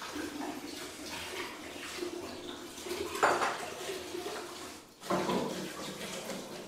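Dishes and utensils clattering at a kitchen sink, with water running, and one sharp clatter about three seconds in.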